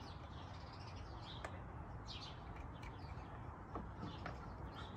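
Quiet outdoor background with birds chirping briefly now and then, and a couple of faint clicks as the plastic window shade is handled.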